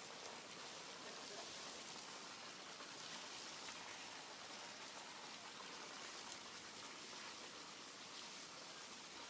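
Steady, faint hiss of outdoor background noise, with a few soft ticks here and there.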